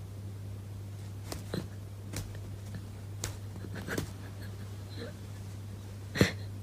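Quiet room tone: a steady low hum with a few faint clicks and soft rustles, and one sharper click about six seconds in.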